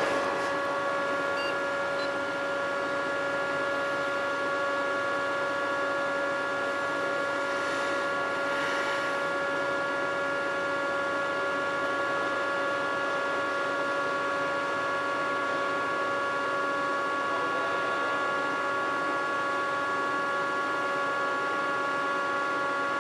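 Steady electrical hum of a CNC machine and its controller cabinet, with several unchanging high-pitched tones, while the MX7 controller restarts after a software update.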